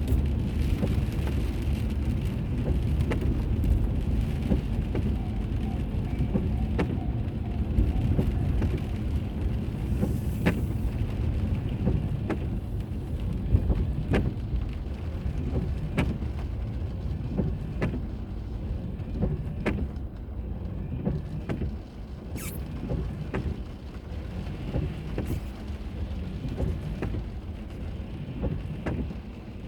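A car driving, heard through a dashboard camera: a steady low road and engine rumble with scattered sharp clicks and ticks, and a brief high hiss about two-thirds of the way through.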